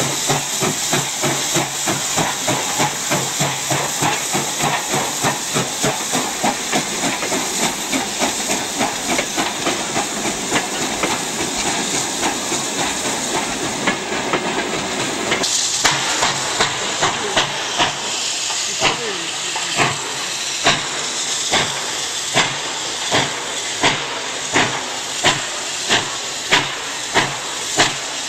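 Soviet Su-class steam locomotive hauling passenger coaches past at speed, with a fast, even chuff of exhaust over steam hiss and running noise. About halfway through the sound changes abruptly to a slower, evenly spaced rhythm of loud beats, about one and a half a second.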